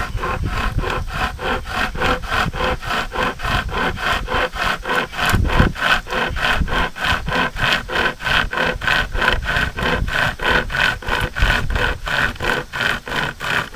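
Hand-pulled pocket chain saw made from a Stihl chainsaw chain, rasping through a tree limb in quick, even back-and-forth strokes, about three or four a second.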